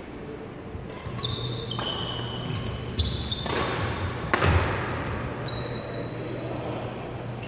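Badminton doubles rally on a sports-hall court: shoes squeak on the floor and rackets make sharp hits on the shuttlecock. About four seconds in a player jumps into a smash, giving a loud sharp racket hit followed by a thud as he lands.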